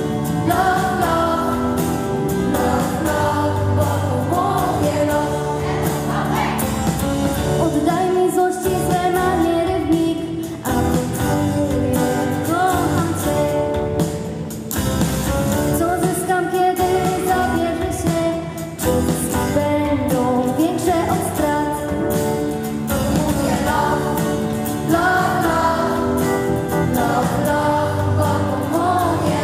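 Large children's choir singing a song together, over instrumental accompaniment with held bass notes and a steady beat.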